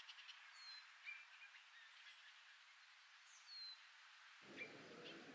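Faint outdoor nature ambience: a few short, downward-gliding bird chirps over a soft hiss, with the last of a rapid pulsed trill just at the start. A low rumble comes in about four seconds in.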